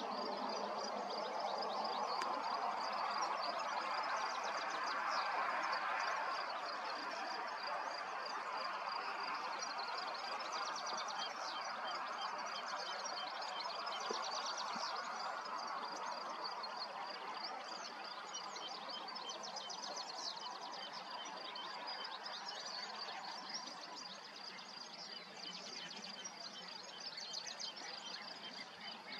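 Outdoor ambience: small birds chirping and singing in short snatches over a steady, high-pitched pulsing trill and a rushing background noise that eases after about six seconds.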